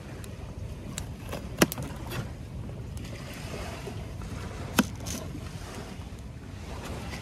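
Steady low rumble of wind and flowing river water, broken by two sharp knocks, one about a second and a half in and another near five seconds in.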